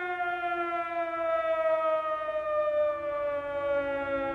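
Air-raid siren winding down: one long wailing tone that slides slowly and steadily lower in pitch.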